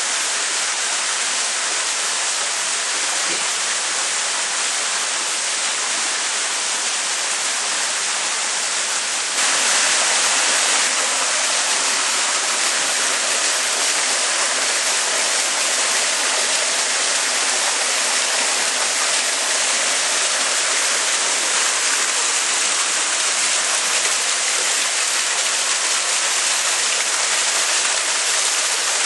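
Steady rush of splashing water in a koi tank, getting a little louder about nine seconds in.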